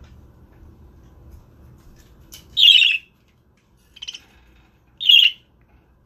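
Budgerigar giving three short, harsh calls about a second apart, the first and last loud and the middle one softer.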